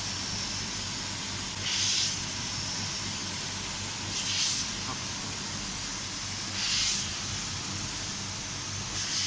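Short hisses of compressed air at a regular beat, four of them about two and a half seconds apart, over a steady machine hum: the pneumatic valves of an automatic glass-bottle screen printer exhausting as the machine cycles.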